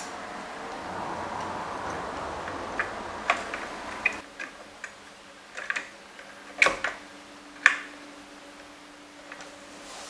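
A CPU cooler being handled and seated on a PC motherboard: scattered sharp clicks and knocks of plastic and metal, over a rustling hiss during the first four seconds. The two loudest knocks come a second apart, past the middle.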